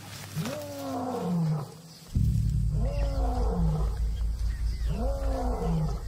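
Lion roaring: three long calls about two seconds apart, each rising briefly then sliding down in pitch. It is a territorial lion's roar, a warning to intruders. Low pulsing background music comes in underneath about two seconds in.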